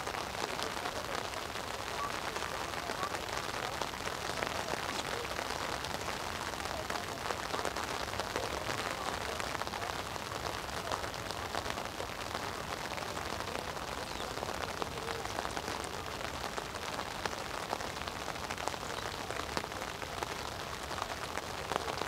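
Steady rain falling: a dense, even patter of many small drops on nearby surfaces.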